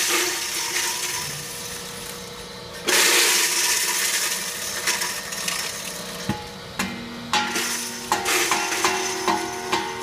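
Corenco grinder running at 1750 RPM with a quarter-inch shredder screen, grinding diced frozen mango: a loud grinding surge as a load goes in at the start and another about three seconds in, over a steady motor hum. Near the end the grinding turns into a quick run of sharp clattering hits as pieces are fed through.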